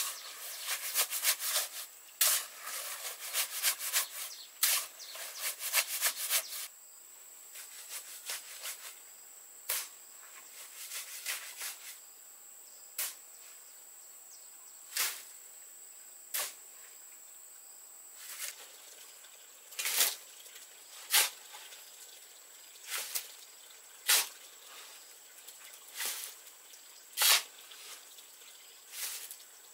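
A hoe scrapes and sloshes through wet concrete mix in quick repeated strokes for the first six or so seconds. Then a shovel scrapes into the mix and knocks as loads go into a wheelbarrow, one every second or two. A faint steady high insect whine sits behind it.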